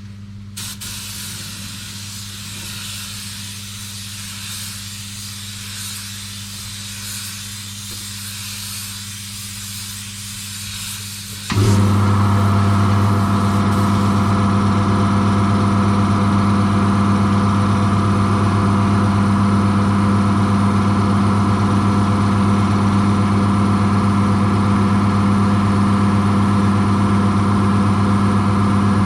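Steady hiss of air over a low hum. About eleven seconds in, a motor starts suddenly and runs on with a louder, steady drone.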